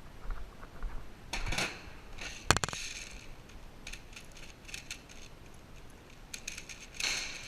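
Light rustling and small clicks of a player's airsoft gear being handled and moved, with one sharp click about two and a half seconds in.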